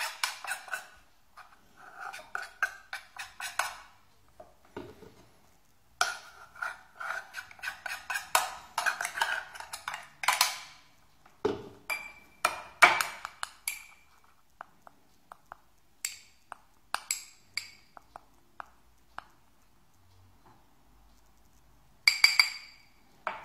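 Irregular clattering and clinking of hard parts being handled, plausibly the coffee grinder's container and lid. It comes in clusters of rapid clicks with short pauses, busiest in the first half and with a sharp burst near the end.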